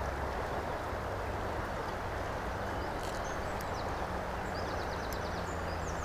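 Shallow river flowing over a gravel bed, a steady rushing of water close to the microphone, with a few faint bird chirps between about three and five seconds in.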